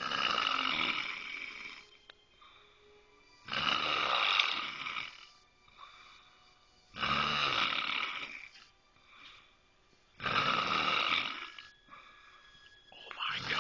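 A woman snoring very loudly in her sleep: four long snores about every three and a half seconds, with a fifth starting near the end.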